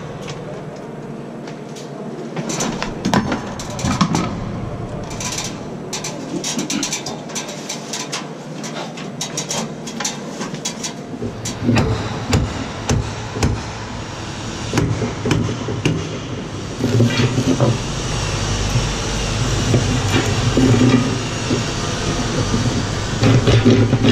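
A hammer driving nails into wooden formwork boards: irregular sharp blows and wood knocks. About halfway in, a steady low engine rumble comes up underneath and runs on with further knocks.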